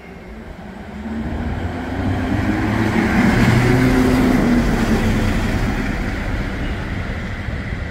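Train passing through the station, its noise swelling to a peak about three to four seconds in and then slowly fading.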